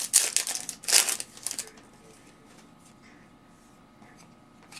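Foil wrapper of a trading-card pack crinkling and tearing as it is opened, in a string of quick crackles that stop after about a second and a half.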